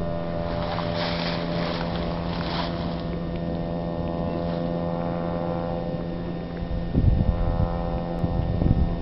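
A steady low mechanical hum with many even tones, like an idling engine. A hissing rush comes in about a second in and fades a couple of seconds later, and two low rumbling thumps come near the end.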